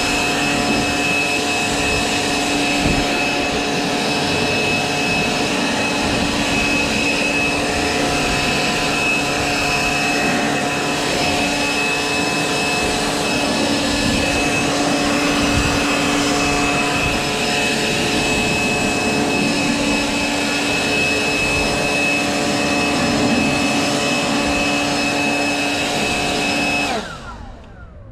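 Handheld leaf blower running steadily at full speed, a rush of air with a high fan whine, blowing water off a freshly washed mower. Near the end it is released and the whine falls away as the fan spins down.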